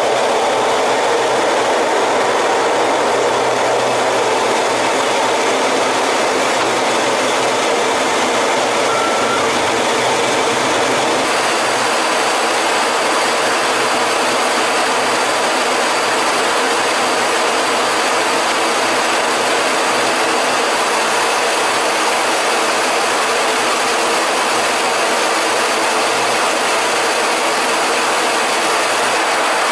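Steady jet noise inside a Su-27 fighter's cockpit: engines running and air rushing past the canopy, loud and unbroken, with a slight change in character about eleven seconds in.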